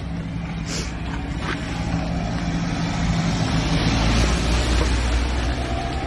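A motor vehicle running and passing close by in street traffic: a low engine hum under tyre and road noise that builds gradually to its loudest about four to five seconds in, then eases off.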